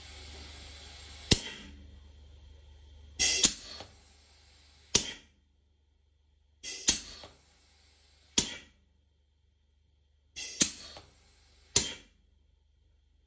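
Serdi 3 seat and guide machine's pneumatic air system and head: a steady hiss of air that drops away with a click about a second in, then a series of sharp clicks and knocks every second or two, some in close pairs and some trailing a short hiss.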